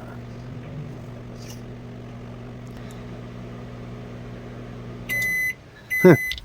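Microwave oven running with a steady hum, with no arcing from the metal spoon inside. About five seconds in the hum stops and the end-of-cycle beeper sounds twice, with a loud clunk during the second beep.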